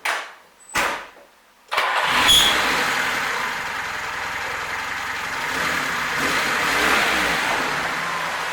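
Two brief thumps, then a VAZ Zhiguli's four-cylinder engine starts and settles into a steady idle, its exhaust running through the freshly welded muffler.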